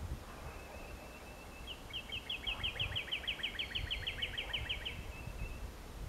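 A small songbird's rapid trill: about twenty short, high, down-slurred notes repeated about six a second for roughly three seconds, over a low background rumble.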